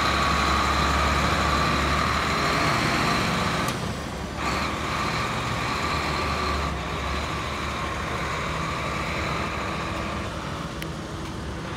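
1995 Ford LN8000 dump truck's engine running as the truck drives off, growing fainter as it pulls away.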